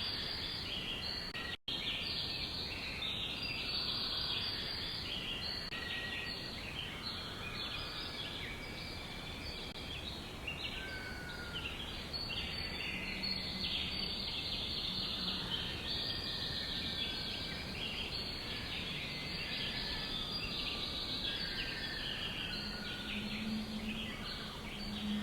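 Many small birds chirping at once, short overlapping high chirps with an occasional whistled note, over a steady outdoor background hiss. The sound cuts out for an instant about a second and a half in.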